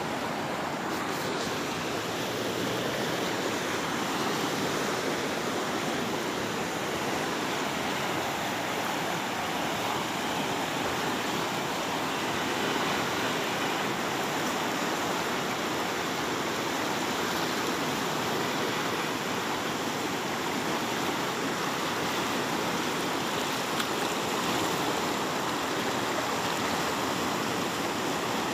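Jhelum River rapids rushing steadily over rocks, a continuous full roar of white water.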